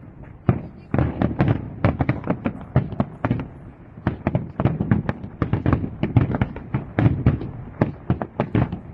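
Fireworks going off in rapid succession: a dense run of sharp bangs and crackles, several a second, over a low rumble of booms.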